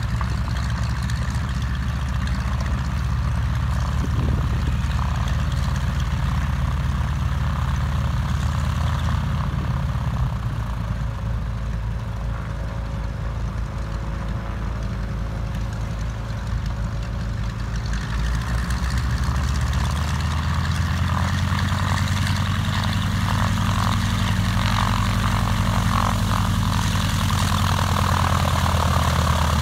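North American Harvard's Pratt & Whitney R-1340 Wasp nine-cylinder radial engine idling on the ground with the propeller turning. The engine note dips somewhat near the middle, then rises in pitch and loudness about two-thirds of the way through as the engine is run up a little.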